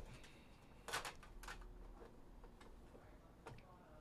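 Faint handling sounds from a metal card-box tin: a few light clicks and taps as its lid comes off and the box inside is lifted out, the sharpest about a second in.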